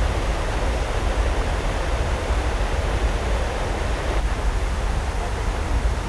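Mountain waterfall: a steady rush of falling water with a deep rumble underneath.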